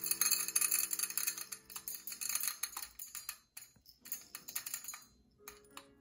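Whole coffee beans poured from a small glass jar into a stainless steel dosing cup, rattling against the metal. A dense rattle for about three seconds, thinning to scattered clicks as the last beans drop.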